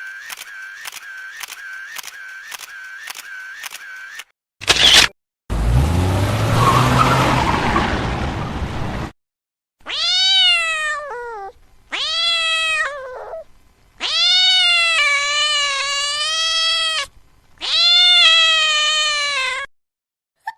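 A run of separate clips: about four seconds of a pulse repeating about twice a second, a short burst, a three-second rushing noise with a rising low hum, then four long cat meows, each bending in pitch.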